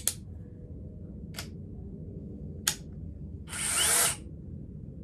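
DeWalt 20V XR cordless hammer drill: three sharp clicks about a second apart from its selector collar being turned, then a brief half-second spin of the motor and chuck when the trigger is pulled.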